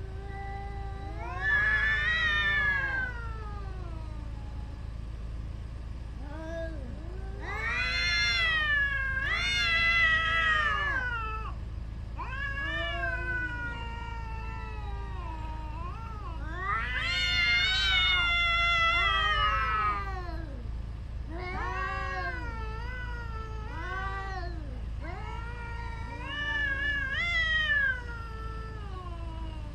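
Cats caterwauling in a territorial standoff: long, drawn-out yowls that rise and fall in pitch, one after another and sometimes overlapping, loudest about a third of the way in and again past the middle.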